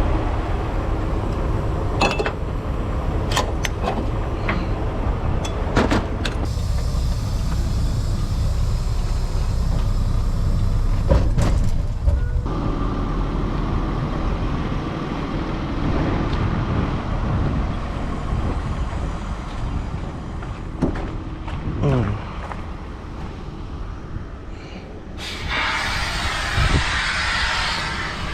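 Heavy diesel machinery running with a steady low rumble, broken by scattered clanks and knocks. Near the end comes a hiss lasting a couple of seconds.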